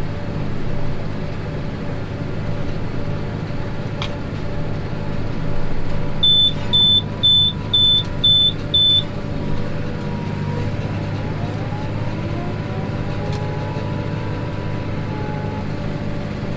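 Tractor engine running steadily, with a run of six short, high electronic beeps about half a second apart a few seconds in.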